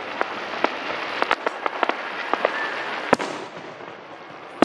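Aerial fireworks crackling: many sharp small pops over a dense hiss, with one much louder bang about three seconds in.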